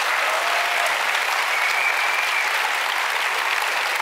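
Audience applauding, a steady, dense clapping.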